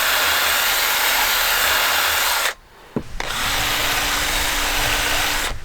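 Cordless drill spinning a round chainsaw file against the chain's cutters: a steady grinding rasp that stops about two and a half seconds in, then starts again after a short pause with a steady motor hum under the grinding, and stops near the end.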